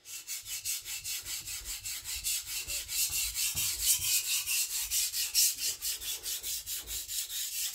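Chinese cleaver's steel edge stroked quickly back and forth on a sharpening stone, an even, rhythmic scraping of several strokes a second. He is grinding a new low-angle edge bevel and working toward a burr.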